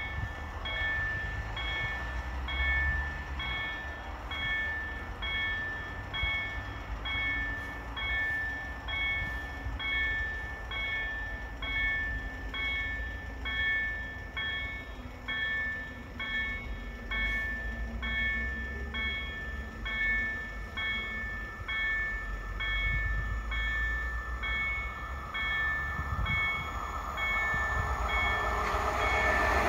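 Level crossing warning bell ringing with an even, rapid ding over a low rumble. Near the end, the noise of the approaching train hauled by an EU07 electric locomotive grows.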